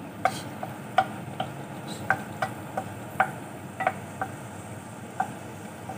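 Wooden spatula tapping and scraping against a non-stick frying pan while stirring sliced onions and cherry tomatoes in oil: about a dozen short, irregular knocks over a steady low hiss of frying.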